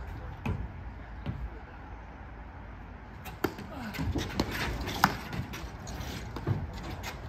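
Platform tennis paddles hitting the ball in a rally: a few sharp pops in the second half, the loudest about five seconds in, with players' voices.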